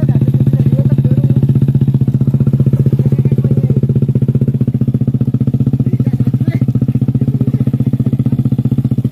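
Motorcycle engine running at a steady speed with a fast, even putter, its pitch holding constant throughout.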